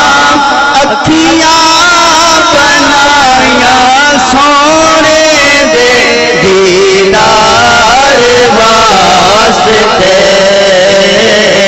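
A man singing a Punjabi naat, amplified through a microphone. It is one long, continuous devotional vocal line whose pitch bends and wavers in ornamented runs.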